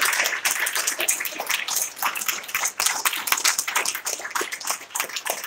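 Audience applauding: dense clapping from many hands that thins to scattered single claps toward the end.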